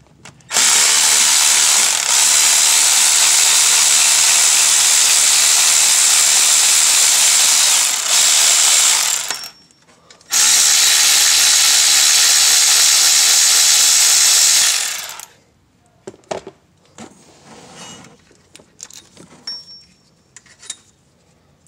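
Cordless power tool running in two long spells, about nine seconds and then about five, backing out the alternator's two 13 mm mounting bolts. A few light metallic clicks and taps follow.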